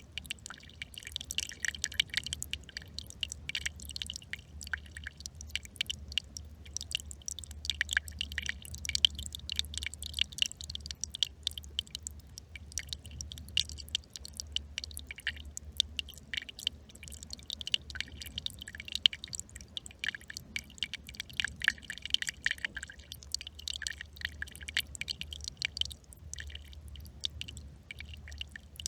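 Small brook trickling and babbling, a dense irregular patter of little splashes and drips, with a steady low hum underneath.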